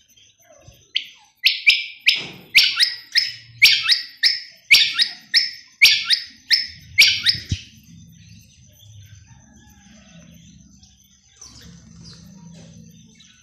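Common quail calling its sharp three-note 'wet-my-lips' song, about five phrases in quick succession, stopping about seven seconds in.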